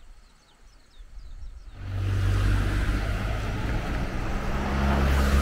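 A car's engine running close by, a steady low hum with road noise, which starts suddenly about two seconds in after a quiet stretch.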